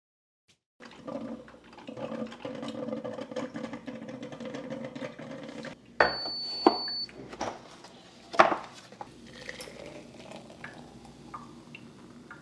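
Kitchen sounds of coffee being made: an appliance hums steadily for about five seconds and stops. A single high electronic beep lasting about a second follows, then sharp clicks and a knock, and softer clinks of dishes.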